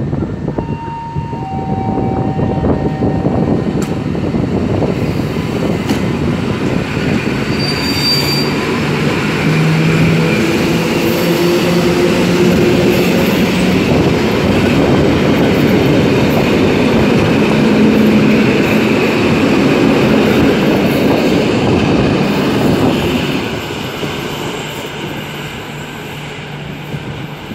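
Polregio electric multiple unit passing close on the adjacent track: a loud rumble of wheels on rails with a few steady tones. It builds over the first ten seconds, holds, and fades over the last few seconds.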